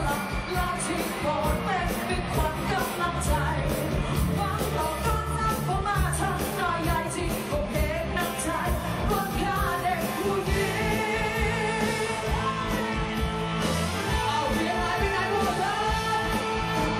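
Live pop-rock song: male voices singing into microphones over a steady drum beat and bass.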